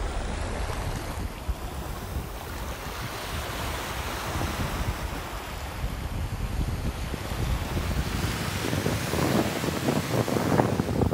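Small sea waves breaking and washing up over a sandy shore, foam hissing on the wet sand, with wind buffeting the microphone. The surf grows louder near the end as a wave breaks close by.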